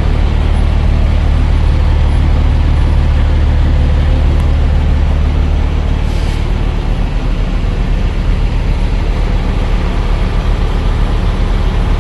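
Diesel truck engine idling: a steady, low, even hum.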